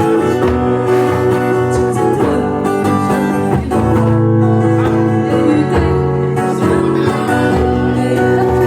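Pop ballad music led by guitar, mostly instrumental, in a break between sung lines.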